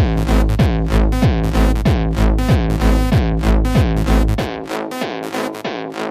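Electronic music from a DJ set: a steady kick drum, each hit falling in pitch, about every 0.6 seconds under deep bass and layered synthesizer chords. About four and a half seconds in, the kick and bass drop out, leaving the synths and lighter percussion.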